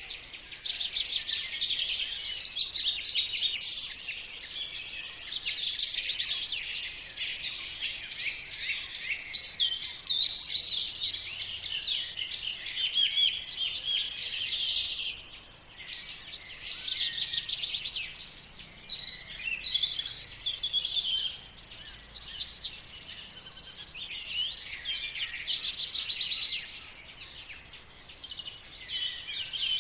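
A chorus of several songbirds singing at once, a dense run of rapid high chirps and trills with a couple of brief lulls.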